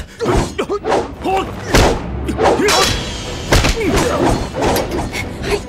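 Staged martial-arts fight sound effects: a rapid series of punch and kick thuds mixed with the fighters' short shouts and grunts.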